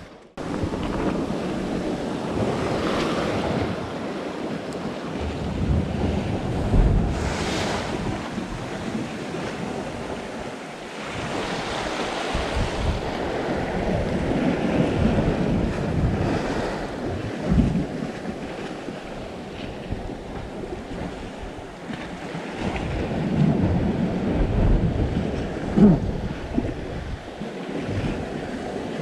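Wind buffeting the microphone in uneven gusts over a steady wash of the sea.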